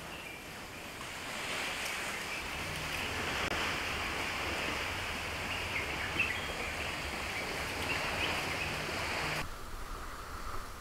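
Steady rushing outdoor noise, with wind rumbling on the microphone for most of it; it cuts off abruptly near the end, leaving a quieter background.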